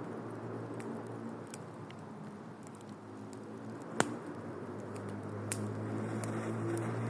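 Campfire crackling: scattered sharp pops and snaps, one much louder pop about four seconds in, over a steady low hum that swells slightly near the end.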